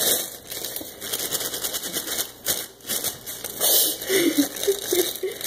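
Clear plastic bagel bag crinkling and crackling as it is handled and the bagels are pulled out.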